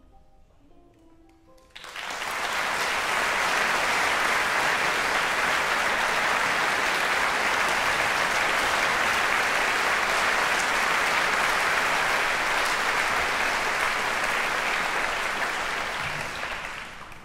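Audience applauding. The applause breaks in suddenly about two seconds in, after a few faint plucked-string notes, holds loud and steady, and dies away near the end.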